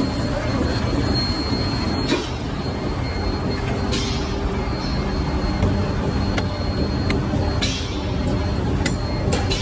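Heavy factory machinery running with a steady low rumble, broken by four sharp bursts with short hissing tails.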